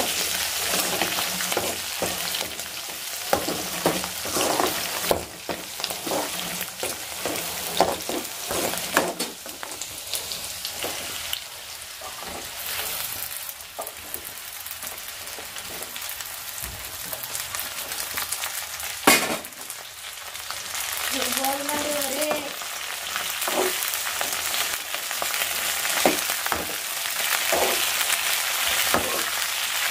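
Green chillies and onion sizzling in hot oil in a steel kadai, a metal spatula scraping and clinking against the pan as they are stirred. Around the middle, chopped okra is tipped in and stirred with them, and there is a single sharp knock about two-thirds through.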